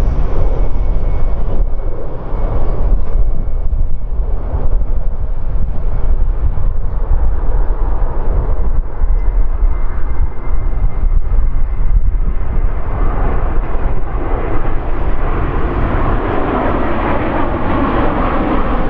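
Airbus A350's Rolls-Royce Trent XWB turbofan engines rumbling during a low flypast, the jet roar growing louder and fuller in the last few seconds.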